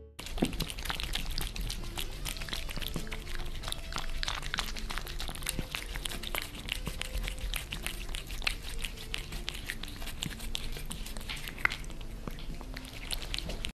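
Two cats grooming: many soft, irregular clicks and rasps of a cat licking the other cat's face, close to the microphone.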